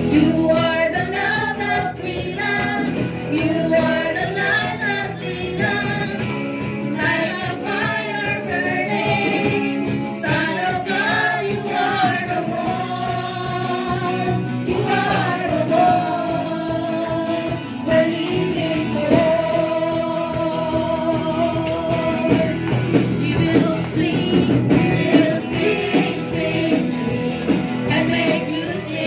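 Background song: a singer's voice over guitar-led accompaniment, with long held notes in the second half.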